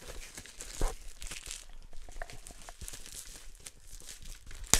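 Cellophane shrink-wrap being peeled and crinkled off a Blu-ray box set: irregular crackling, with a louder crackle about a second in and another near the end.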